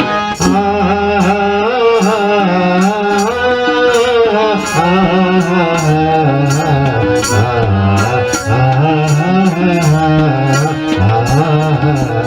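Newar devotional bhajan music: a gliding melody line over a low held tone, with hand drums and bright percussion strokes keeping a steady beat about twice a second.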